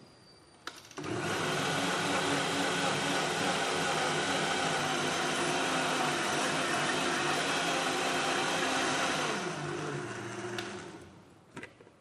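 Countertop blender running steadily, blending avocado and milk into a smoothie. It starts with a click about a second in, runs for about eight seconds, then is switched off and spins down, its hum falling in pitch as it fades.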